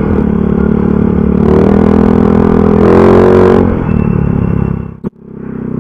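Motorcycle fitted with an aftermarket 'chicken pipe' exhaust, running under way and noisy; the engine revs up in the middle and eases off again, with a brief dropout about five seconds in.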